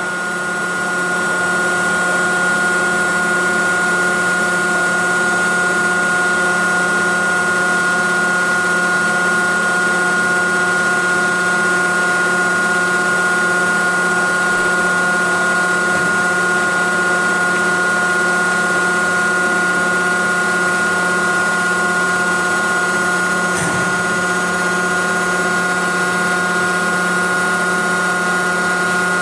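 Hydraulic tensile testing machine running with a steady hum and whine while it pulls a D36 rebar coupler splice in tension.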